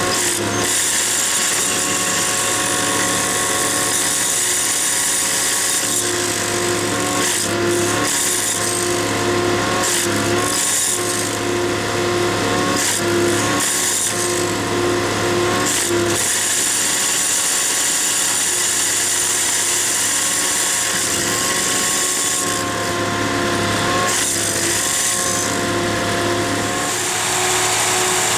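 Railway track tamping machine at work: its engine runs steadily while the vibrating tamping tools buzz in the ballast. The pitch and the buzz shift every few seconds as the tools are worked down into the ballast and raised.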